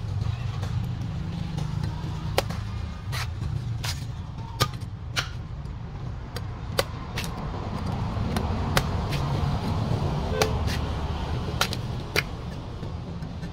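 A large knife chopping into the husk of a golden coconut: fifteen or so sharp chops at irregular intervals, over a steady low rumble.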